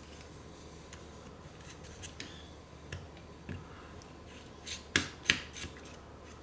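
Small screwdriver working screws out of a Turtle Beach Stealth 450 headset's plastic housing: faint scraping and light ticks, with two sharper clicks about five seconds in.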